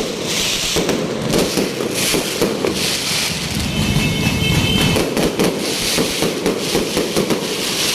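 Fireworks going off, a dense run of rapid cracks and crackling.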